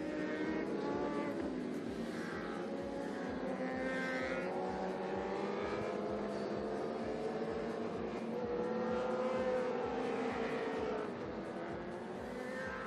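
A pack of racing motorcycles on the warm-up lap, several engines running together with their pitch wavering a little. The sound swells slightly about three-quarters through, then eases off.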